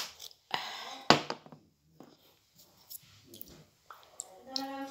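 Glass jar lid twisted open by hand: a sharp click at the start and another about a second in, with a short hiss between, then a few small ticks. A hummed voice starts near the end.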